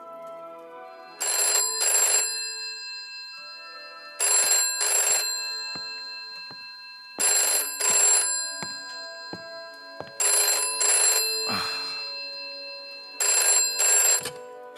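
Telephone ringing with the British double ring: five rings about three seconds apart, each a pair of short bell bursts, not yet answered.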